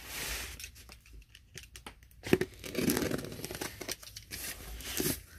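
Cardboard box being cut and torn open, with packaging rustling and crinkling and a few sharp knocks, the loudest about halfway through.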